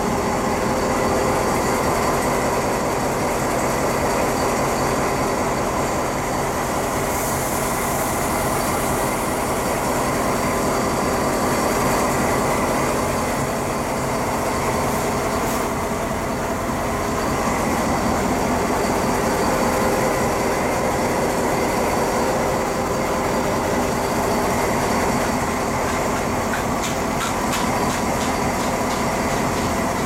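SNCF diesel locomotive's engine idling steadily.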